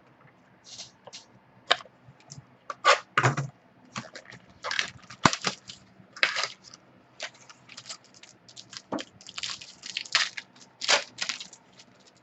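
Football trading cards and their packaging being handled: an irregular run of short crinkles, clicks and card slides, denser in the middle and near the end.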